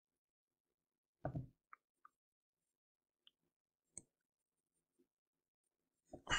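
Quiet room tone broken by a few faint clicks: a soft thump about a second in, small ticks, and a sharp mouse click about four seconds in. Near the end comes a short, louder noisy burst.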